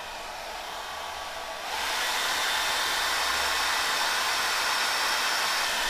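Handheld hair dryer blowing steadily to dry paint on a canvas, growing louder about two seconds in.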